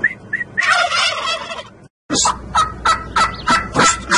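Domestic turkey toms gobbling while strutting in display: one long rattling gobble, a brief cut-out of all sound about two seconds in, then a quick run of short gobbles from several birds.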